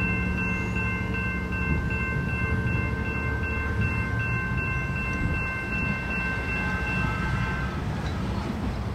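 Metrolink diesel passenger locomotive running with a steady low rumble. A steady high-pitched tone sounds over it and stops about eight seconds in.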